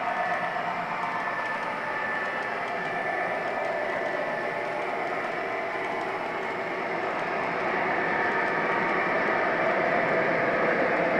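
O-gauge model freight train running on three-rail track: a steady rolling rumble and whine that grows a little louder about eight seconds in.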